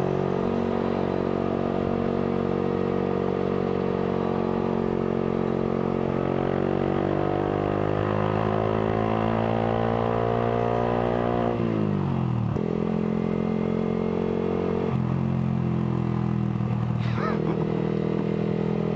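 Yamaha R15 V3's single-cylinder engine through an aftermarket Villan exhaust, running under way. Its note holds steady, then climbs slowly in pitch as the bike gathers speed. About twelve seconds in it falls sharply, then settles into lower, steadier running with a couple of small shifts in pitch.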